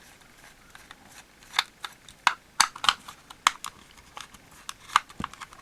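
Irregular sharp clicks and taps of a screwdriver and plastic casing as the screws are taken out of a small plastic battery charger housing.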